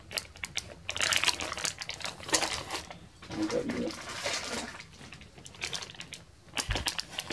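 Clear plastic bag holding model-kit sprues crinkling and rustling as it is handled and moved, in irregular crackles that come and go.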